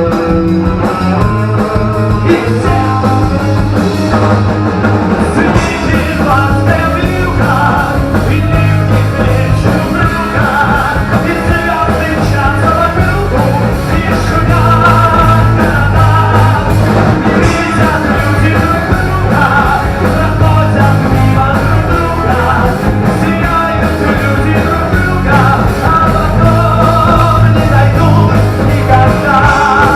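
Rock cover band playing live, the full band going with a steady beat and bass under the melody.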